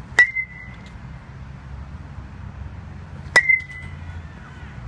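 Metal baseball bat hitting soft-toss balls twice, about three seconds apart, each contact a sharp ping with a brief ringing tone.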